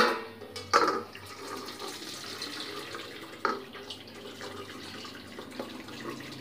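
Hot noodle-cooking water poured from a steel pot onto a perforated steel strainer plate, splashing and draining through the holes as the boiled noodles are tipped out. A few sharp knocks cut through the steady pouring, right at the start, about a second in and about three and a half seconds in.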